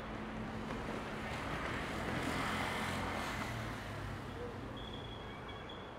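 A road vehicle passing close by: its noise swells to a peak about two and a half seconds in and then fades away.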